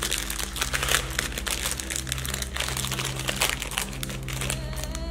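Plastic wrapper of a packaged chocolate snack cake being torn open and peeled off by hand, crinkling densely and irregularly throughout.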